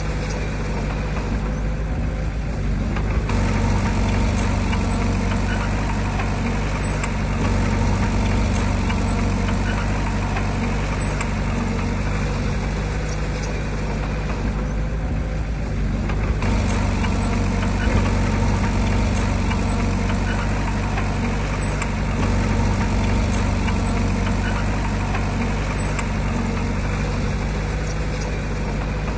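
Large diesel engine of heavy earthmoving machinery running steadily, rising and easing a little in level over stretches of several seconds.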